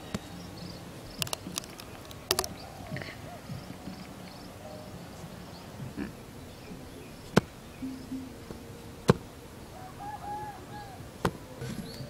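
Rubber mallet knocking bamboo stakes into sandy ground: sharp single knocks, a quick cluster in the first couple of seconds, then one every second or two. Insects chirr faintly behind.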